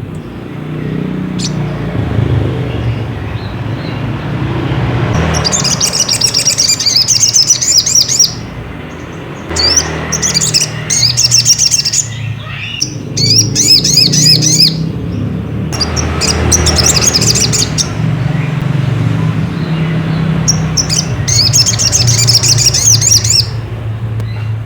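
Brown-throated sunbird (sogok ontong) singing in about five bursts of rapid, high chirping notes, each two to three seconds long, over a steady low hum.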